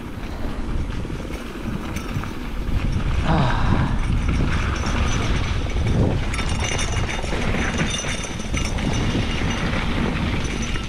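Mountain bike riding fast over a rough dirt trail: steady tyre and bike-rattle noise with wind rumble on the microphone.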